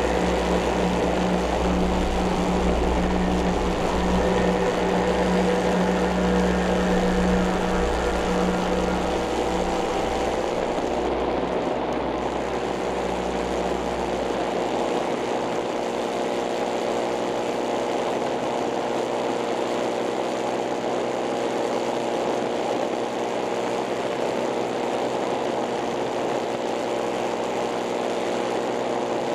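A powered paraglider trike's engine and propeller running steadily, with a heavy low rumble that fades about fourteen seconds in. The engine note shifts slightly about ten seconds in.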